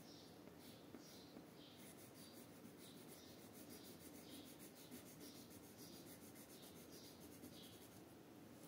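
Faint scratching of a red coloured pencil shading on paper, in repeated short back-and-forth strokes about two a second.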